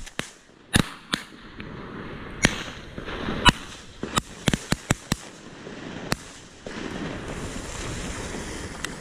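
A volley of shotgun shots at flushing ducks, about a dozen in all: some close and loud from the camera's gun, others fainter, with a quick run of shots about four to five seconds in. A steady rushing noise follows near the end.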